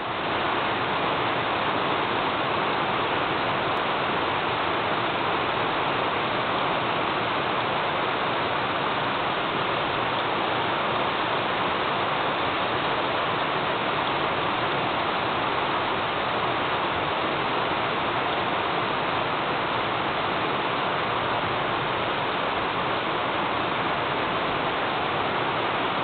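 Rain pouring down steadily in a thunderstorm, an even rushing hiss.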